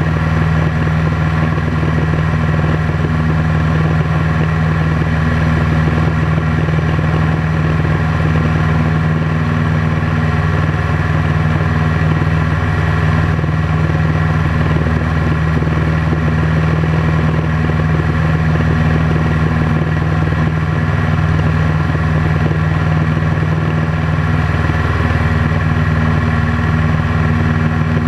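Piper PA-18 Super Cub's piston engine and propeller running steadily in flight, heard from inside the cockpit: a constant deep hum with a rushing noise over it.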